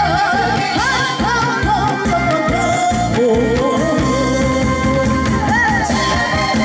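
A woman singing a Korean trot song with a wavering, ornamented voice into a handheld microphone, over a recorded backing track with a steady beat, amplified through the stage's PA speakers.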